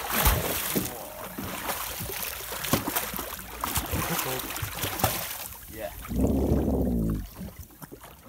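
A hooked porbeagle shark thrashing at the surface beside a boat's hull, water splashing and slapping in irregular bursts for the first five seconds or so. A voice calls out briefly about six seconds in.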